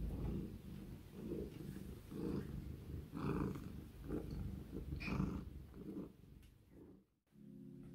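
Domestic cat purring close to the microphone, swelling and fading about once a second with its breathing, until it cuts off shortly before the end.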